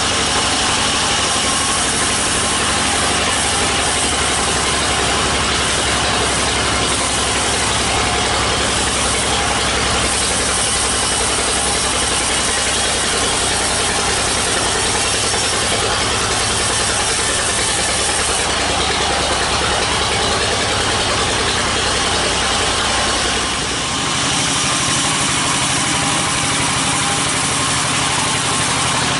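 Large sawmill band saw running and cutting through a teak log, a loud, steady mechanical noise with a low drone beneath it. The low drone drops away about three-quarters of the way through.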